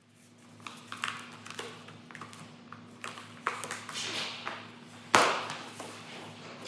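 Rustling and light taps from a person moving while stretching with her legs up against a wall, with one sharp knock about five seconds in, over a steady low hum.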